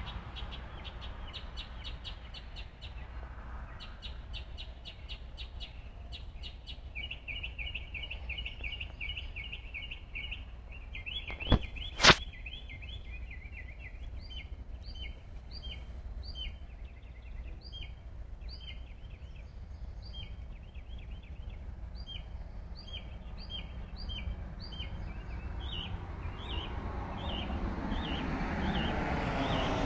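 Small birds chirping in repeated short calls and a quick trill over a low steady rumble, which grows louder near the end. Two sharp clicks about half a second apart near the middle are the loudest sounds.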